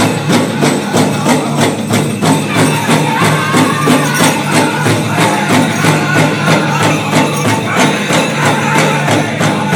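Powwow drum group singing a men's chicken dance song in unison over a large shared bass drum struck in a steady, even beat.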